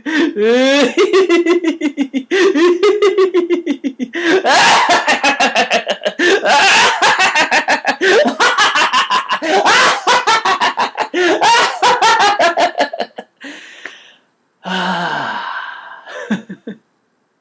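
A man laughing on purpose in laughter-yoga style, with rapid ha-ha pulses. The laugh grows louder and more intense from about four seconds in, breaks off near thirteen seconds, then comes back as a gasping breath and a short final burst.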